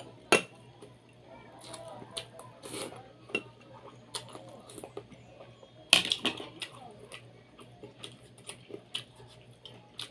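Close-up eating sounds: chewing boiled chicken, with scattered clicks and knocks from handling the food and plate. Two sharper knocks stand out, one just after the start and one about six seconds in.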